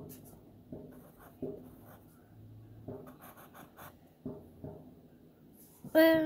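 Pencil scratching on paper in short strokes as small loops are drawn. Near the end a voice starts a loud, held note.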